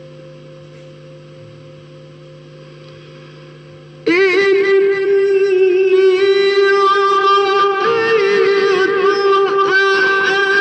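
Music: a quiet steady drone of held tones, then about four seconds in a loud sung melody with wavering, vibrato-laden pitch begins and carries on.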